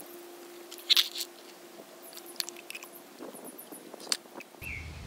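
Scattered sharp clicks and clinks of scroll AC compressor parts being handled, metal parts and a plastic parts tray knocking together, the loudest about a second in.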